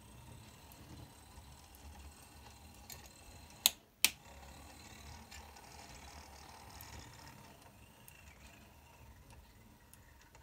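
Model railway diesel locomotive's small electric motor and gear drive running along the track under a PWM controller, a low steady hum. Two sharp clicks, a third of a second apart, about four seconds in.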